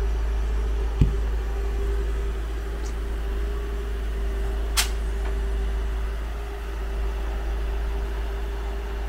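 Steady machine hum with a constant tone from the mobile tyre van's on-board air compressor, running while a truck tyre is inflated. Two short clicks, about a second in and near the middle.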